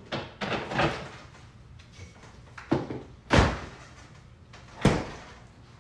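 Knocks and thuds from things being shifted around in a refrigerator while its door is handled, with two heavier thuds at about three and a half and five seconds in.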